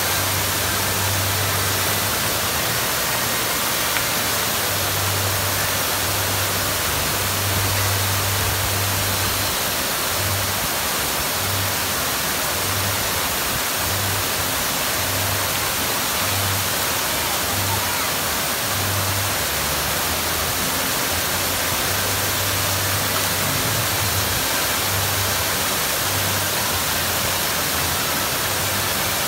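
Fountain water splashing in a steady rush: jets falling into a pool and water pouring over the rim of a large basin.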